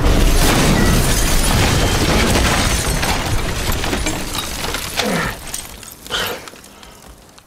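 An explosion at a wooden shack: a sudden loud blast with glass shattering, followed by a long noisy rumble and falling debris that fade away over several seconds.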